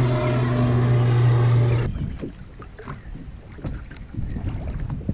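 A steady low motor hum that cuts off abruptly about two seconds in, followed by small, irregular water splashes and light knocks around a kayak.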